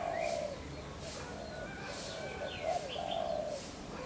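Doves cooing, with one low coo at the start and another about three seconds later, while smaller birds chirp and whistle in the background.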